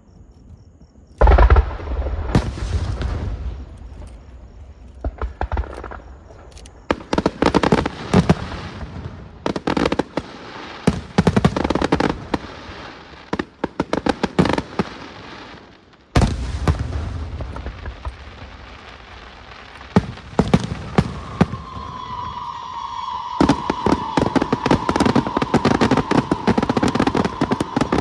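A fireworks display. A heavy boom comes about a second in and another about 16 seconds in. Stretches of rapid crackling come between them. Near the end, dense fast crackling runs together with a steady high tone.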